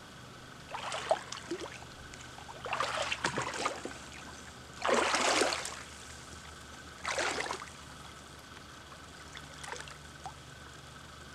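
An angler wading through shallow pond water among reeds: a string of about five splashing, swishing steps a couple of seconds apart, the one about five seconds in the loudest.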